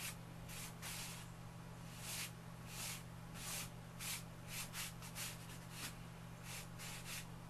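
Lecturer's chalk stroking across bogus paper: a run of short, scratchy strokes, about two a second, over a steady low hum.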